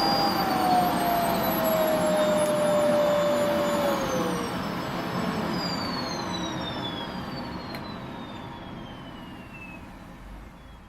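Vacuum cleaner motor running with a steady whine, then switched off about four seconds in: the whine falls in pitch and the noise fades away slowly as the motor spins down.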